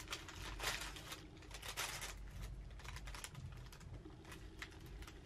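Paper sticker sheets and a plastic sleeve being handled on a desk: rustling and light taps as the sheets are flipped through and laid down. The rustling is densest in the first two seconds, then comes in scattered taps.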